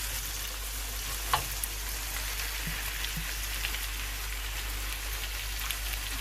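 Chicken pieces with ginger-garlic paste and ground spices sizzling in hot oil, a steady frying hiss, with one sharp knock about a second in.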